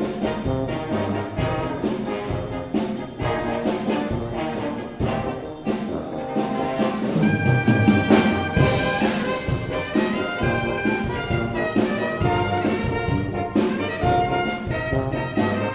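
A street busker band playing a lively tune live, several pitched instruments holding and changing notes over a steady, evenly struck beat.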